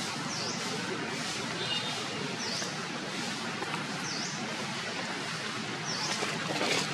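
A bird's short high call, dipping and rising in pitch, repeated five times at roughly even intervals over a steady outdoor hiss.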